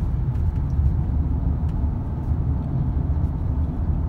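Steady low rumble of a car cruising at about 45 mph, road and engine noise heard from inside the cabin.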